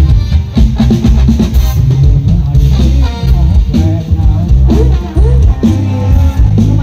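Live Thai ramwong sam-cha band music played loud through a sound truck's stacked PA speakers: electric guitar over a drum kit with heavy bass.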